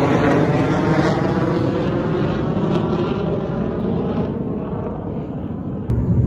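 Steady drone of a passing engine, fading gradually over several seconds.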